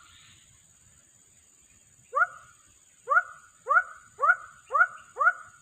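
An animal giving a series of short, sharply rising, bark-like calls: one about two seconds in, then five more about half a second apart.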